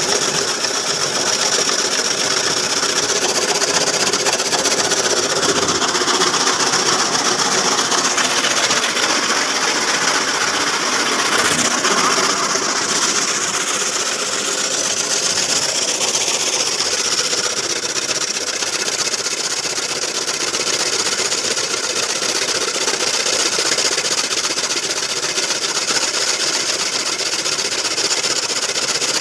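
Four-blade chaff cutter driven by a 5 HP electric motor, running steadily while chopping green fodder for silage, the cut fodder blowing out of its flywheel chute.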